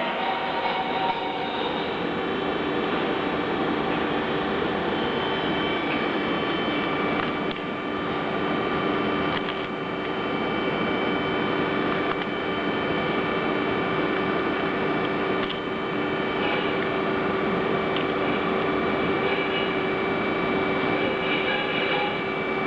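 Machinery running with a steady hum made of several held tones under a dense noise, with a few faint clicks along the way. The source is a high-frequency welding and cutting machine at work.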